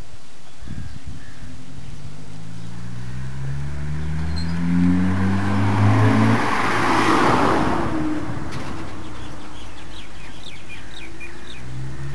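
A car drives up and passes close by: its engine note rises as it nears, and tyre noise is loudest as it goes past about seven seconds in, then fades. Near the end a small motorbike engine is heard approaching.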